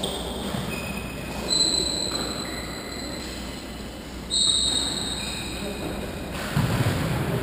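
Trainers squeaking on a sports-hall floor: several high squeals, the loudest about a second and a half in and just after four seconds in, each ringing on in the hall. A dull thud near the end.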